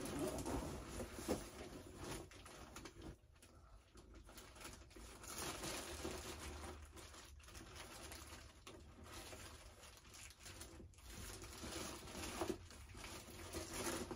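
Intermittent rustling and crinkling of a nylon canopy carrying bag and the paper and plastic packing inside it as it is handled and searched through.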